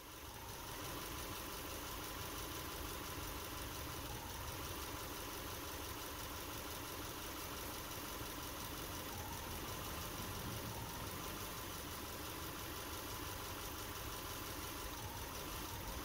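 Subaru Impreza's flat-four engine idling steadily, heard at the engine bay, with an intermittent misfire that makes the idle drop: a single-cylinder misfire on cylinder 3.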